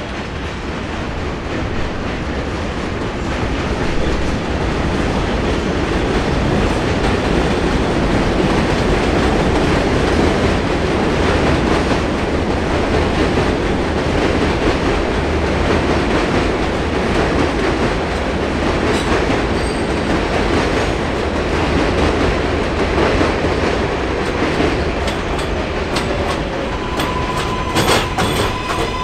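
Subway trains running on elevated steel track: a steady rumbling roar from a train crossing the overpass, building over the first few seconds. Near the end an R143 L train runs into the station with clicks and a steady high squeal.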